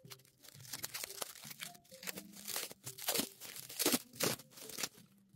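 Crumpled newspaper and clear plastic wrapping crinkling and tearing as they are pulled off a carved stone skull by hand, in irregular crackles, with the loudest crunches a little past halfway.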